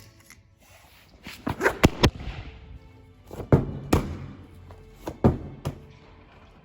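Gym equipment knocking and clanking: several sharp, irregularly spaced impacts in three clusters, with short rushing swells between them, over faint background music.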